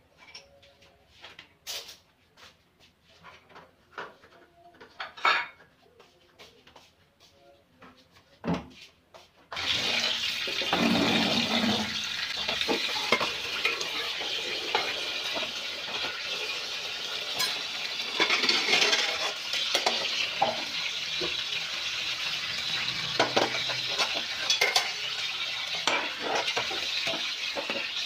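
Plates and dishes clicking and clattering as they are handled at a wire dish rack. About a third of the way in, tap water starts running steadily, with metal bowls and a wok clanking as they are rinsed and washed under it.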